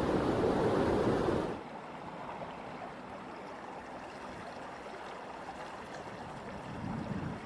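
Floodwater rushing, a steady wash of water noise that cuts abruptly about a second and a half in to a quieter, steadier rush.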